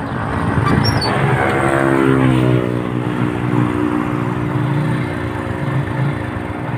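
Small motorcycle engine running close by; its pitch falls about two seconds in as it slows, then holds steady at low revs.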